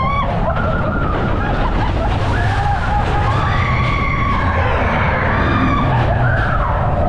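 Matterhorn Bobsleds coaster car running along its steel track: a steady heavy rumble under overlapping high, wavering squeals that rise and fall in pitch.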